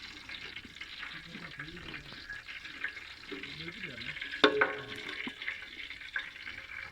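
Food sizzling as it fries in a pan, with stirring. About four and a half seconds in there is one sharp metallic clang that rings briefly, with fainter clicks after it.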